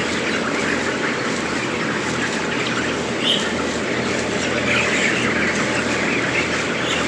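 Steady massed chatter of a large flock of 29-day-old chickens crowded in a poultry shed, with a few louder squawks rising above it, over a low steady hum.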